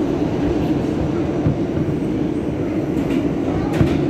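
An R160B subway car with Siemens propulsion running steadily along the track: an even rumble with a strong low hum, and a few faint clicks from the wheels on the rails in the second half.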